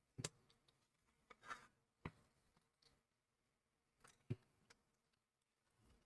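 Faint clicks of small plastic model parts being handled and pressed together onto their locating pegs, three or four separate ticks with near silence between.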